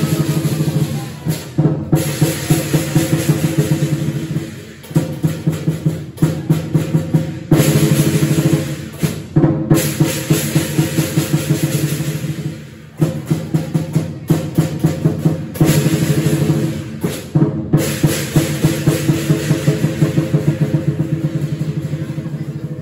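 Chinese lion dance drum beaten in fast, even strokes and rolls, with cymbals clashing along, played in runs of a few seconds broken by short breaks.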